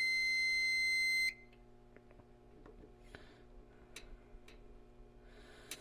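A single electronic beep from a fire alarm system piezo sounder: one steady high tone lasting about a second and a half at the start, then low room noise with a few faint clicks.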